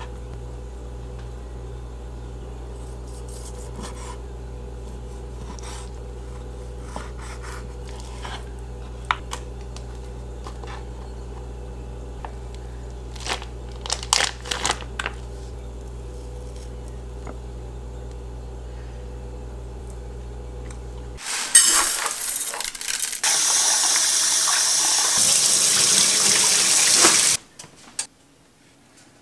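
Steady low hum with light handling clicks and a brief plastic crinkle of food packaging. About 21 seconds in, tap water starts running hard into a rice cooker's inner pot, rinsing rice, then stops suddenly after about six seconds.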